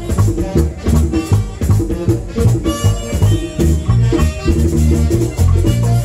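Live merengue típico (banda típica) music: a fast, even rhythm with a scraped rattle and drum strokes over a bass line, with a melody carried above.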